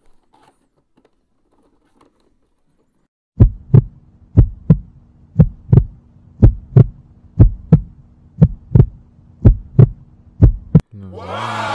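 Heartbeat sound effect: eight double thumps (lub-dub), about one a second, over a steady low hum. It starts after a few seconds of quiet, and a whoosh rises near the end.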